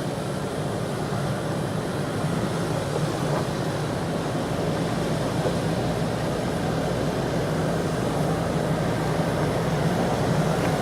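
Four-wheel-drive vehicle driving up a steep rocky track: a steady low engine drone under a haze of tyre and track noise.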